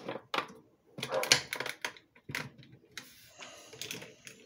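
Plastic clicks and knocks of a Dolce Gusto capsule holder and milk pod being handled and fitted into the coffee machine, a quick run of sharp clicks about a second in and a rougher clatter near the end.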